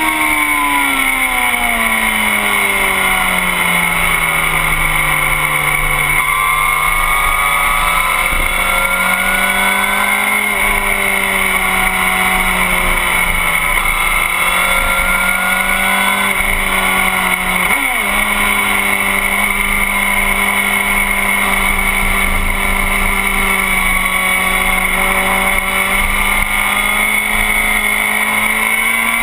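Motorcycle engine running hard on a racetrack, heard from the bike's tail section over a steady rush of wind. The engine note falls over the first few seconds as the bike slows, then rises and falls gently through the corners. There is a brief break in the note about 18 seconds in.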